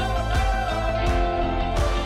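Background music led by guitar, over a steady beat.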